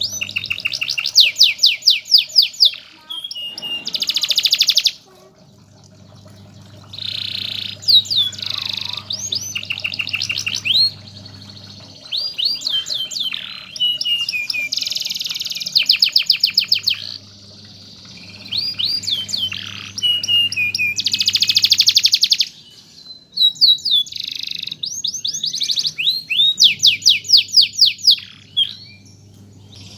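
Domestic canary singing in fast rolling trills and rapid repeated phrases, in bursts with short pauses between them. A low steady hum comes and goes underneath.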